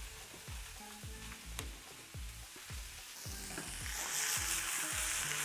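Oil sizzling in a frying pan, growing louder a little after halfway, over soft background music with a steady low beat.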